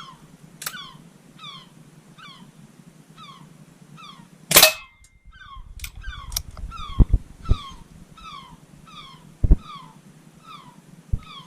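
Gulls calling over and over, short falling cries roughly once a second. About four and a half seconds in, a single sharp crack from a Hatsan Mod 25 air pistol firing a pellet is the loudest sound, followed by a few dull knocks.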